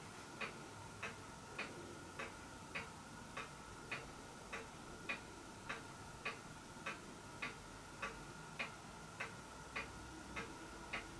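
Steady, even ticking like a clock, a little under two ticks a second, with a faint steady high tone underneath.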